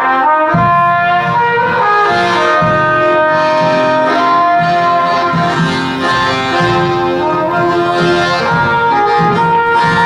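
Live chindon-ya music: a trumpet plays a melody of held notes over accordion chords.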